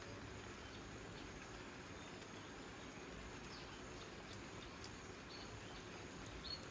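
Quiet outdoor ambience: a steady soft hiss with a few short, high bird chirps scattered through it.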